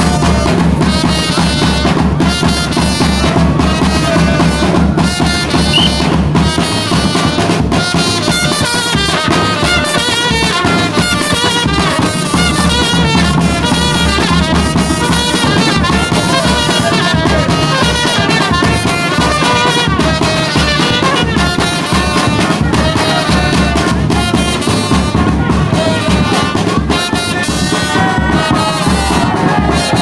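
Loud music with brass horns over a steady drum beat.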